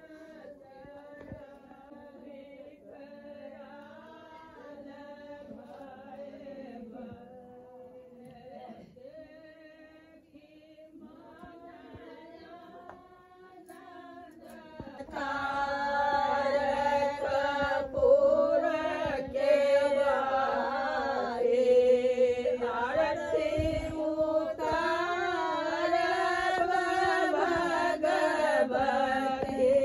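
Women singing together, a traditional puja song; soft at first, then much louder from about halfway through.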